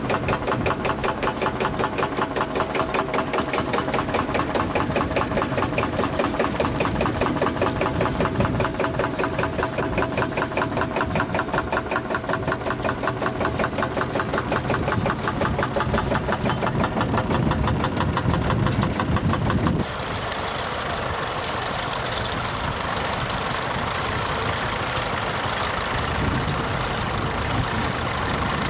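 Vintage tractor engine running with a quick, even firing beat. About twenty seconds in, the sound changes abruptly to a smoother, less beating engine note.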